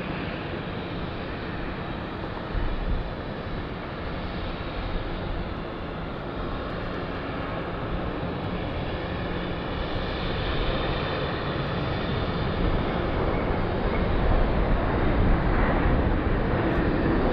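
Jet airliner engines: a steady rushing roar with a faint high whine that grows steadily louder, as of a jet approaching.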